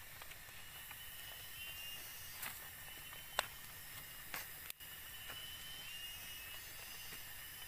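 Tropical forest ambience: a steady high chorus of insects with a thin trilling note running through it. A few sharp clicks of footsteps on the leaf-littered dirt trail come through near the middle, the loudest about three and a half seconds in.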